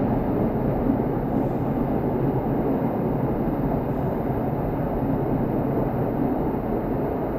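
Steady drone of a motorboat's outboard engine running under way.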